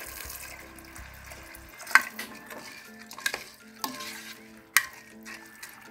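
Rice, vegetables and freshly added water being stirred with a spoon in a rice cooker's metal inner pot: a wet swishing, with the spoon knocking sharply against the pot several times, loudest about two seconds in and near the end.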